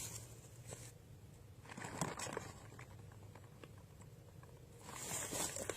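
Faint rustling with a few light clicks and taps, a small cluster of them about two seconds in. No shot is fired.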